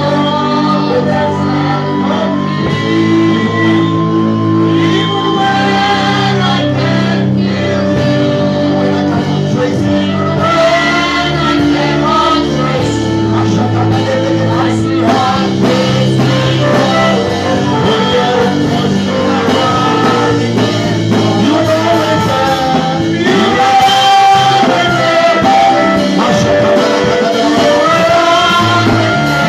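Live worship music: voices singing over a band with sustained keyboard chords and guitar, in a large hall.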